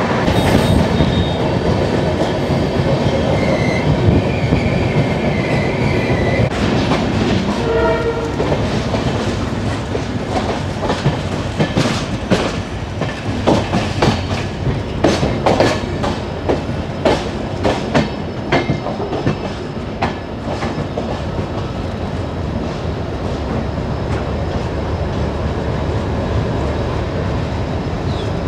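Passenger express train running, heard from on board, with steady rumble and wheel clatter. Through the middle the wheels clatter in a dense, irregular run of clicks over rail joints and points as the train nears a junction. A wavering high whine comes a few seconds in, and a short pitched note about eight seconds in.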